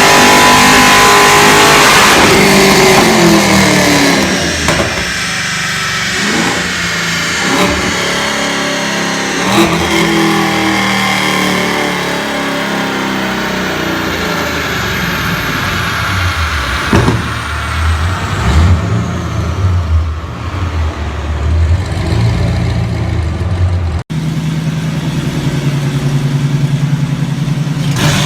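Tuned car engine revving hard, then falling off toward idle with a series of sharp exhaust pops and cracks: backfire on the overrun. Near the end the revs climb again.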